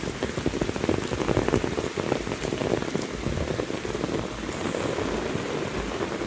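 Heavy rain falling steadily, with a dense run of close individual drops ticking throughout.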